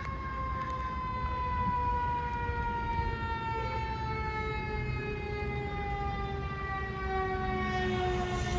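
Fire siren winding down, its pitch falling slowly and steadily, over a low engine rumble.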